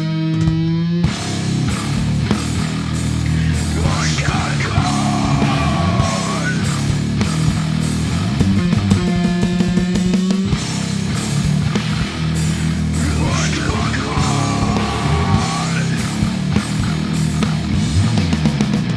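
Loud heavy rock from distorted bass guitar with effects and drums, with no words. Twice, a wavering, gliding higher sound cuts across the sustained low bass notes.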